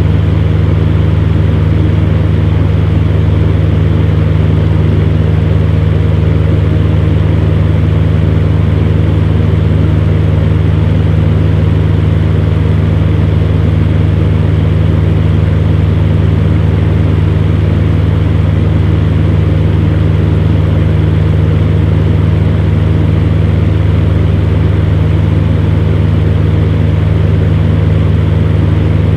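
Electric fan heater running steadily: a constant low motor hum under an even rush of blown air.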